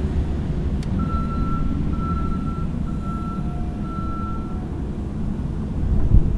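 Kioti skid steer's diesel engine running with a heavy low rumble, while its backup alarm beeps four times in a row, starting about a second in.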